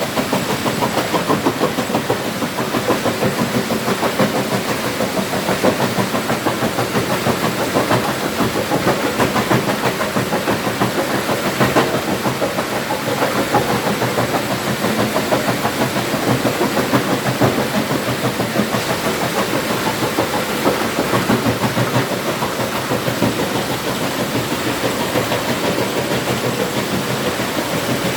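Engine-driven stone crusher running steadily, a dense, continuous fast rattle of the machine at work.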